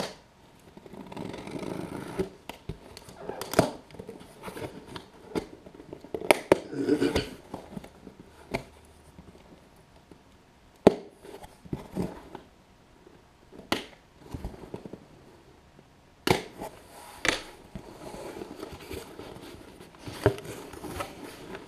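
Cardboard shipping box being opened by hand: picking and scratching at the packing tape, with scattered sharp clicks and several stretches of scraping and tearing as the seam gives way.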